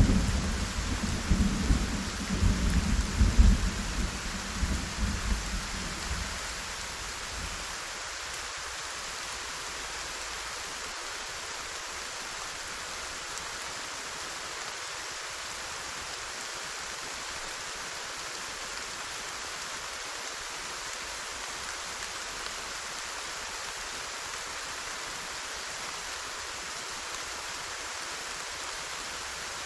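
Steady heavy rainfall with a clap of thunder at the start, rumbling and crackling for about six seconds before it dies away, leaving only the rain.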